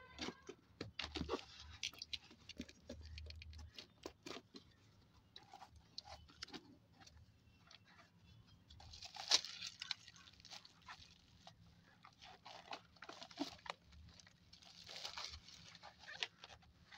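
Cardboard box being torn open and plastic bubble wrap crinkling as it is handled: irregular crackles, scrapes and taps, with louder spells of rustling about nine and fifteen seconds in.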